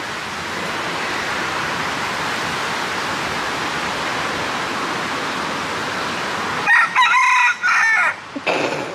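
Steady rush of a waterfall. Near the end a rooster crows once, about a second and a half long, and then gives a short call.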